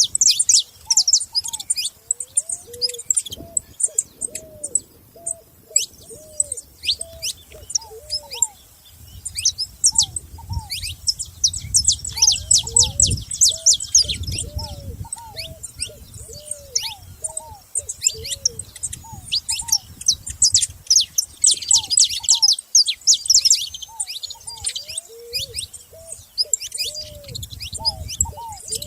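Several saffron finches chirping, dense rapid high chirps coming in busy clusters. A lower short call from a bird repeats about twice a second beneath them.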